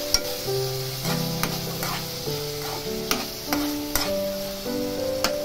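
Metal spatula stirring chopped onions and tomatoes frying in a metal kadai: repeated scrapes and clinks of the spatula against the pan over a light sizzle. Background music with held notes sits underneath.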